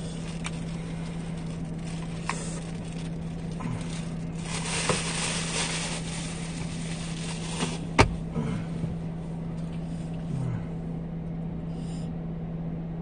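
Steady low hum inside a car cabin, with rustling and small handling clicks as something is fiddled with in the lap, and one sharp click about eight seconds in.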